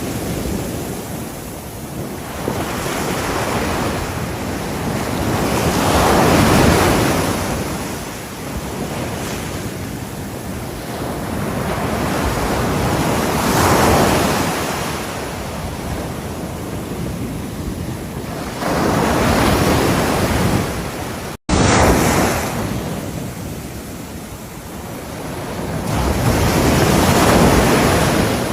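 Ocean surf breaking on a shore, the wash of noise swelling and ebbing as each wave comes in, about every six to eight seconds. The sound cuts out for a split second about three-quarters of the way through.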